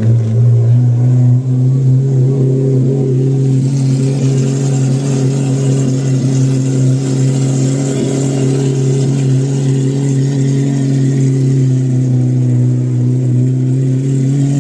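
Supercar engine running loudly at a steady speed, its deep note holding an even pitch, then beginning to climb at the very end.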